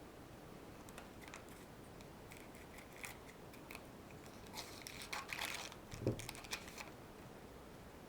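Trading cards being handled: light clicks and rustles, busiest from about four and a half to seven seconds in, with a soft knock about six seconds in.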